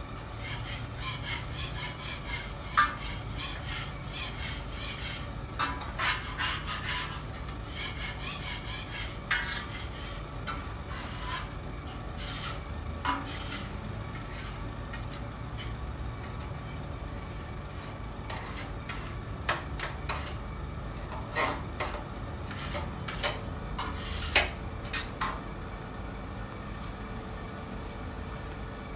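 Kitchen work: a fast run of scraping strokes over the first few seconds, then scattered sharp knocks and clatters, over a steady low hum.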